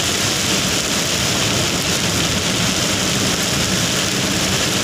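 Heavy rain falling on a moving vehicle, heard from inside the cab, with the vehicle's engine running steadily underneath.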